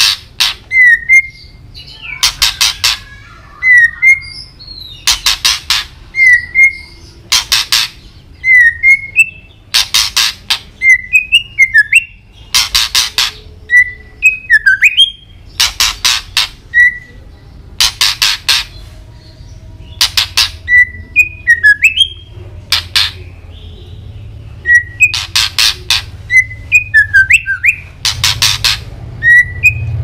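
White-rumped shama singing: short whistled notes, some sliding up or down, alternating with loud harsh rattling bursts that come every second or two.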